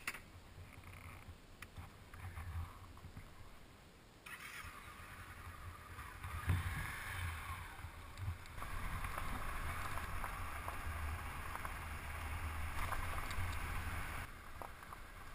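Honda CB500X's parallel-twin engine running at low speed under the crunch of its tyres on loose gravel. The gravel noise grows louder about four seconds in and again near nine seconds, then drops back near the end.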